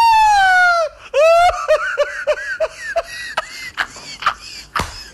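A man laughing hard: a long, high-pitched whoop of laughter that falls in pitch, then a second whoop and a run of quick 'ha-ha-ha' bursts that die away. A few sharp knocks come near the end.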